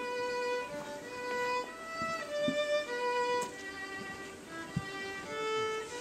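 Music: a violin playing a slow melody of held notes.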